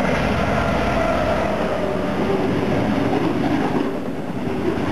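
Diesel-hauled freight train passing close by at speed: a loud, steady rumble of wagon wheels on the rails. A faint tone from the passing Class 66 locomotive falls slightly in pitch over the first two seconds.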